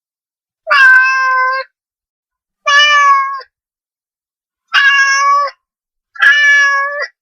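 A cat meowing four times, each meow just under a second long at a fairly steady pitch, spaced about two seconds apart with silence in between.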